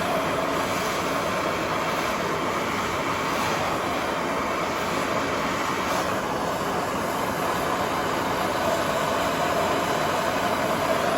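Handheld gas torch flame burning steadily, heating the spine of a high-carbon steel knife blade to draw its temper.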